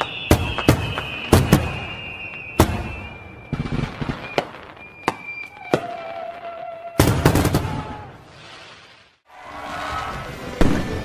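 Aerial fireworks bursting: a string of sharp bangs at irregular intervals, with a dense cluster about seven seconds in. The sound cuts out briefly just after nine seconds and comes back fuller and denser.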